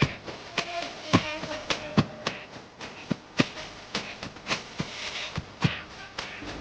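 A series of irregular sharp clicks and knocks, about one or two a second, like hard objects being handled and set down.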